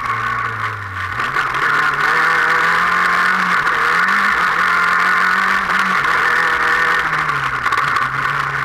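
A race car's engine heard from inside its caged cockpit. It speeds up about a second in, holds high revs with a brief dip, then drops back near the end as the driver eases off, over a steady rushing noise.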